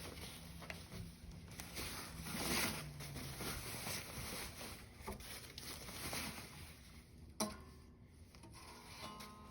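Unpacking handling noise from a new guitar's shipping box: irregular rubbing and rustling of cardboard and packing, louder about two and a half seconds in, with one sharp click near the end.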